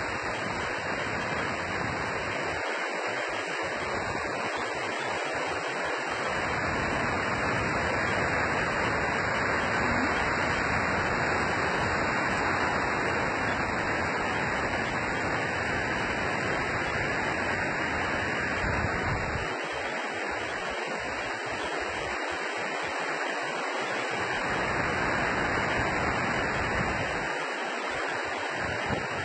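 Steady roar of storm wind, with gusts buffeting the microphone in a low rumble that drops away a few times.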